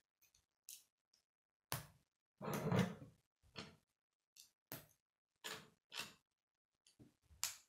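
Plastic K'nex rods and connectors clicking and knocking as they are handled and snapped together, a dozen or so separate clicks. A longer, louder plastic clatter about two and a half seconds in, as a built section of pieces is set down on the wooden table.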